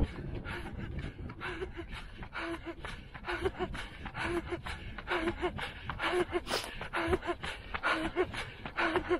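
A runner breathing hard at race pace, with rhythmic gasping breaths a little over once a second, over quick, regular footfalls on asphalt.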